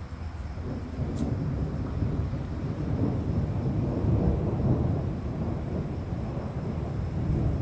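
Rolling thunder: a long, low rumble that swells about a second in and keeps rumbling.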